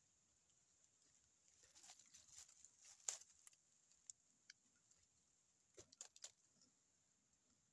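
Faint scraping and cracking of teeth gnawing bark off a slender tree trunk, heard as two short spells of clicks and scrapes, the first around two to three seconds in and the second about six seconds in.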